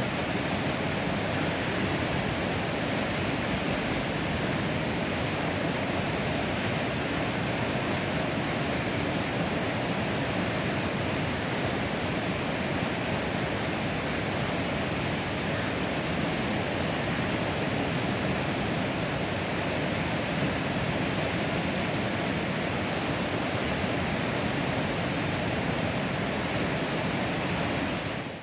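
Steady rushing of whitewater river rapids, an even wash of water noise with no breaks or changes.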